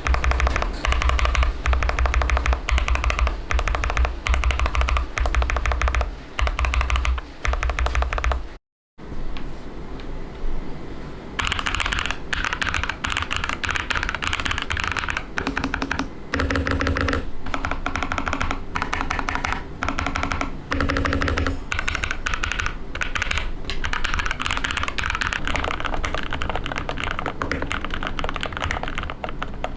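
Rapid keystrokes on a mechanical keyboard with Akko CS Silver linear switches, clacking in quick runs of typing. The sound changes about a third of the way in, after a brief dropout. Near the end the typing is on Gateron Milky Yellow linear switches.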